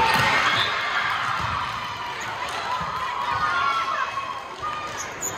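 Spectators shouting and cheering during a volleyball rally in a gym, loudest right at the start and easing off, with thuds of the ball being played.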